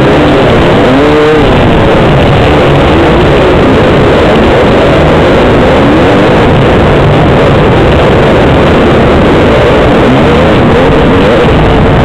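Yamaha YZ250 two-stroke dirt bike engine being ridden hard, its pitch rising and falling with each throttle change, mixed with the engines of other dirt bikes riding close by. Very loud and constant, as picked up by a helmet-mounted camera.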